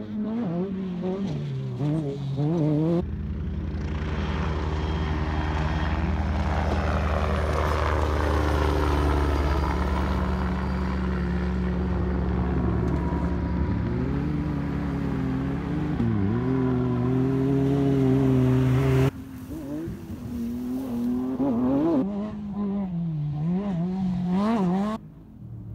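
Off-road race vehicles' engines revving up and down as they bounce through whoops on a dirt track. In the middle comes a long, loud, steadier stretch of engine noise that cuts off abruptly, then the revving rises and falls again.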